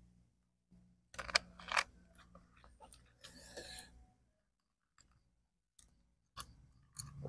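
A few short clinks and knocks as a glass bottle and a drinking glass are handled and set down on a table after pouring a dark soft drink, the loudest a pair of sharp clinks about a second and a half in. Near the end come a few faint small sounds as the drink is sipped.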